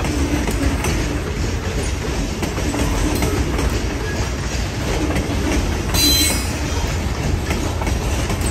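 Freight cars rolling past on steel rails: a steady heavy rumble with clicking from the wheels over rail joints. About six seconds in, a wheel gives a brief high-pitched squeal.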